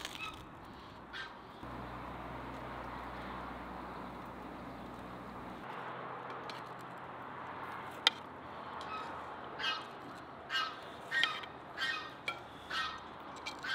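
A bird calling over and over, about seven short pitched calls in the last four seconds. A single sharp click comes just past the middle.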